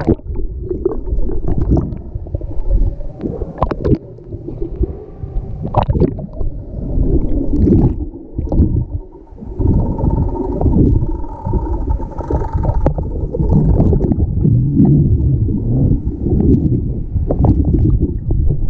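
Swimming-pool water heard through a submerged GoPro: a muffled, irregular churn of water and bubbles stirred by swimmers, with sharp knocks and splashes here and there.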